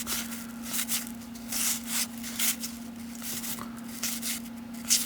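Baseball cards being flipped through by hand: several short, dry rustles of card sliding against card, with a faint steady hum underneath.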